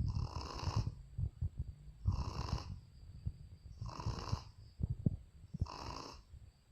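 A Shih Tzu dog snoring in deep sleep: four snores about two seconds apart, with quieter low breathing sounds between them.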